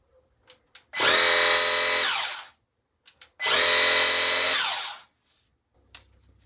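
Small electric motor of a Parkside 20V cordless pressure washer switched on twice, each time running for about a second and a half with a steady whine, then winding down in pitch as it is released. A few small clicks come just before each run.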